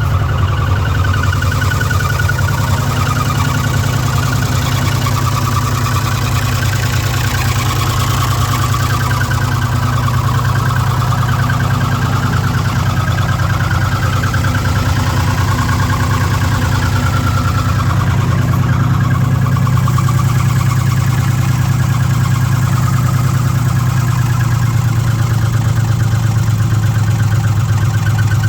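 The 5.4 L V8 of a 2006 Ford F-150 running steadily, making the engine noise that goes with its stored P0016 code, a bank 1 crankshaft–camshaft position correlation fault.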